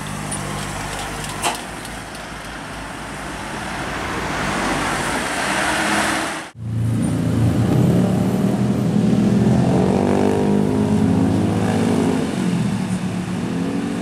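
Minibus engines passing through a tight bend. The first engine swells as it approaches, then cuts off abruptly. A louder engine follows with a rising and falling note before easing near the end.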